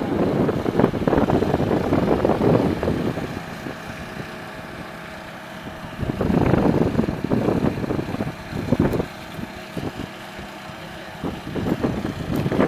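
Lamborghini Gallardo Spyder's V10 exhaust, loud under acceleration for the first few seconds. It then drops to a quieter steady running note, surges loud again about six seconds in, and rises once more near the end, with heavy wind noise on the microphone throughout.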